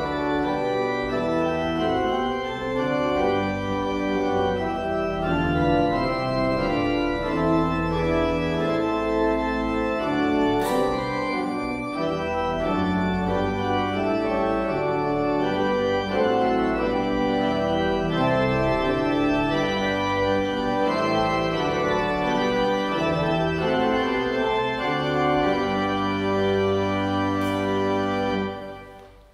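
Church organ playing held chords that move from one to the next, stopping about a second before the end.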